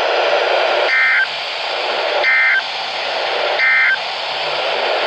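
NOAA weather radio sending the EAS end-of-message signal: three short bursts of warbling digital SAME data tones, about a second and a half apart, over steady radio static. The bursts mark the end of the emergency alert broadcast.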